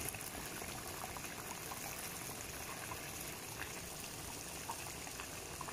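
Pork curry simmering in a pot: a steady bubbling hiss with scattered small pops as bubbles burst at the surface.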